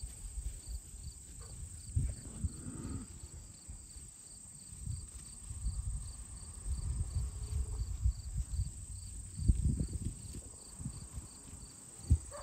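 Insects trilling steadily, with a faint regular chirp a couple of times a second. Irregular low rumbles and thumps come and go beneath, the strongest about two seconds in, near ten seconds and just before the end.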